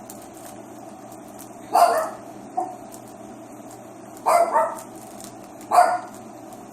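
A pet dog barking in the background, three short bouts a couple of seconds apart, the middle one a quick double bark.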